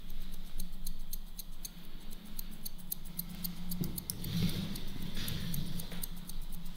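Hairdressing scissors clicking and snipping in a quick, even run of light ticks, several a second, over a faint steady low hum.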